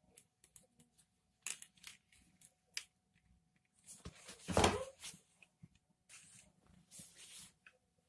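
Handling noise of a vacuum cleaner being taken apart: scattered sharp plastic clicks and knocks as the motor unit comes out of its housing, with a louder scraping rustle about halfway through.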